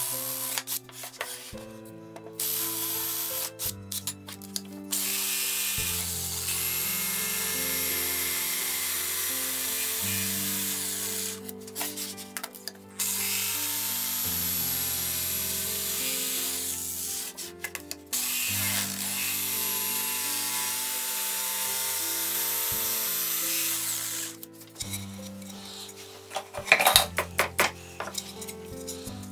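A jigsaw cutting through an MDF panel in several long runs of steady buzzing, over background music. Shorter bursts of drilling come near the start, and a few quick strokes of a bench brush sweeping sawdust near the end.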